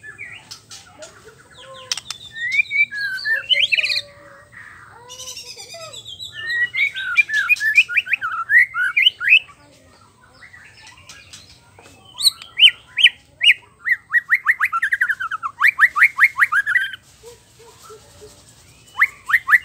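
Male white-rumped shama (murai batu) singing its varied song: several bouts of fast repeated notes and trills, with short pauses between them.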